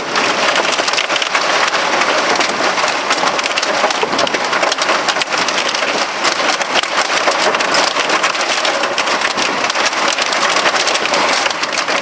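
Heavy rain falling hard and steadily, a dense wash of noise packed with many sharp individual drop hits.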